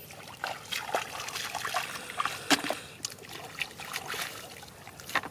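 Shallow muddy water splashing and trickling as bare feet wade and hands work through it, with irregular small splashes, the sharpest about halfway through.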